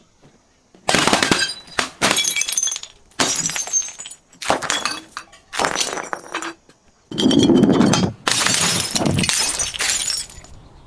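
Glass breaking and crunching: a rapid series of about eight or nine crashes after a second of quiet. The heaviest crash comes about seven seconds in.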